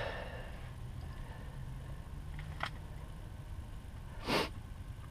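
A single short sniff about four seconds in, over a low steady hum, with a faint click a little before the middle.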